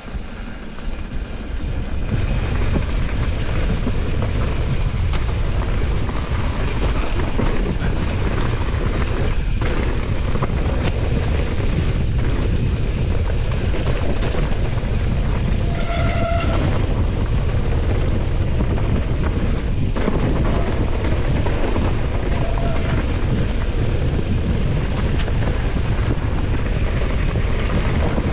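Steady wind on the microphone with a heavy low rumble and rattle from moving fast along a trail, with a few sharp clicks. A short high-pitched tone sounds about halfway through.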